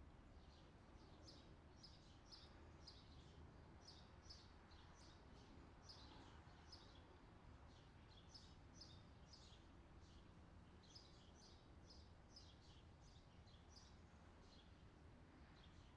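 Near silence: a faint steady low hum with faint short high chirps repeating about twice a second.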